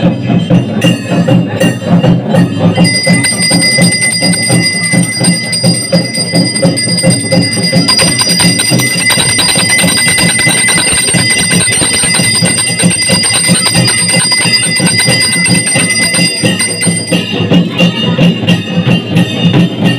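Temple puja bell rung without pause for about fourteen seconds, starting a few seconds in and cutting off near the end, over rhythmic devotional music.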